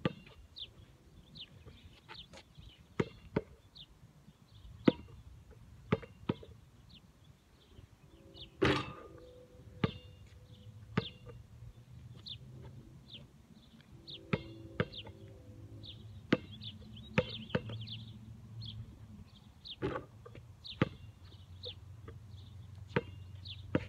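A basketball bouncing on hard ground: single sharp bounces at uneven intervals as it is dribbled and shot. About nine seconds in comes the loudest and longest impact, with a ringing note, as the ball strikes the hoop.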